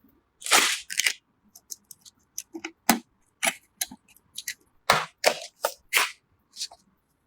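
A series of sharp plastic and metal clicks and snaps, irregularly spaced, with a short swish about half a second in: PC components being handled and snapped into place during a build.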